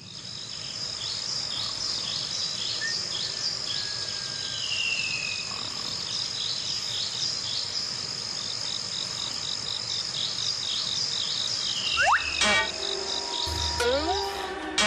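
Night-time chorus of crickets and other insects: a steady high trill over evenly repeated chirps, with a few falling whistled calls. About twelve seconds in, cartoon music breaks in with rising slide-whistle glides.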